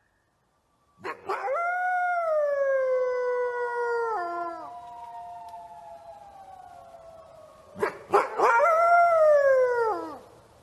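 Wolf howling. A long howl rises sharply about a second in and slowly falls away, with a fainter second howl trailing on beneath it. Near the end another howl rises and falls.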